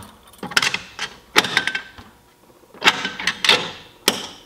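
Handling clatter from a yellow EST 278A-REL manual release pull station being fitted onto its back box: clusters of sharp plastic and metal clicks and knocks about a second apart, a couple with a brief metallic ring.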